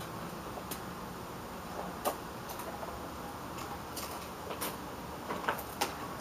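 A scattered series of light clicks and ticks over a steady hiss, with the loudest click about two seconds in and a quick cluster near the end.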